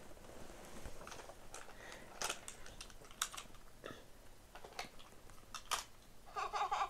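Light plastic clicks and knocks, scattered irregularly, as small VTech plastic toy cars are set down and pushed into a row along a snap-together plastic track.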